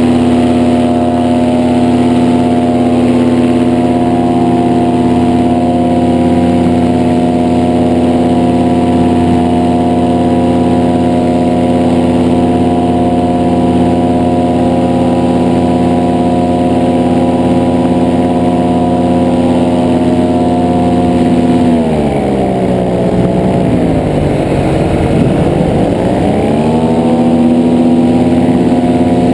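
Two-seat paramotor trike's engine and propeller running at a steady high throttle, heard from aboard in flight. About two-thirds of the way through, the pitch sinks and swings back up twice as the throttle is eased off and reopened, then it holds steady again and falls away right at the end.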